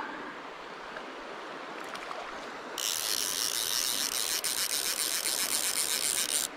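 A fly reel's click-and-pawl drag ratcheting steadily as line runs through it while a hooked trout is played, starting about three seconds in, over the faint wash of a stream.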